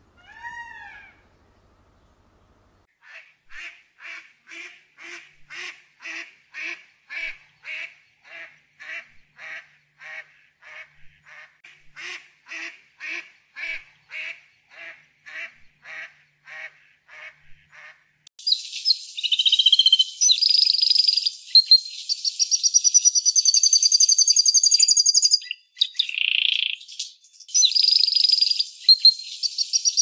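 A short arched call in the first second, then a duck quacking in a long, even series of about two dozen quacks; from about eighteen seconds in a canary sings a rapid, high trilled song, broken briefly near the end.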